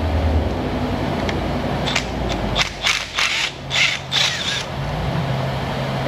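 Impact wrench run in about five short bursts of rapid hammering over roughly two seconds, breaking loose and backing out old spark plugs.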